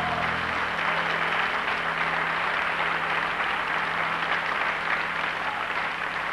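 Studio audience applauding steadily. The band's last low held note cuts off under the clapping less than a second in.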